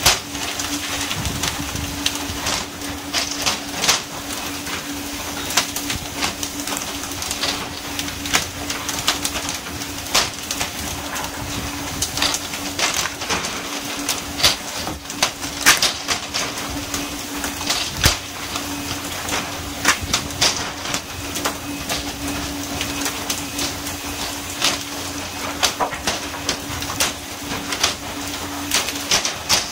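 Pole-and-line tuna fishing: a steady hum from the boat and rushing water spray along the hull, with frequent sharp slaps and knocks as fish are swung aboard and land on the deck.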